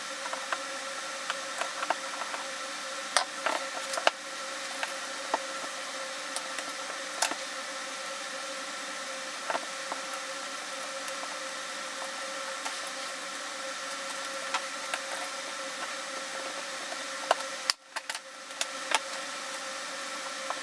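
Scattered light clicks and taps of parts and tools being handled while an airsoft rifle is taken apart, over a steady hiss with a faint steady hum. The sound drops out briefly near the end.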